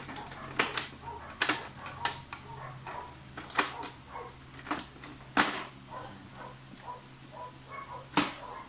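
Irregular plastic clicks and knocks from handling an Epson L360 printer's scanner unit and casing during reassembly, with a louder knock near the end as the scanner unit is lowered shut.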